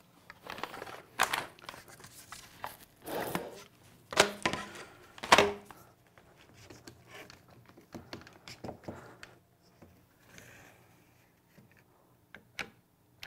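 Clear plastic tubes and ping pong balls being handled on a wooden workbench. There are several sharp hollow knocks and clatters with some rustling in the first half, then lighter scattered clicks.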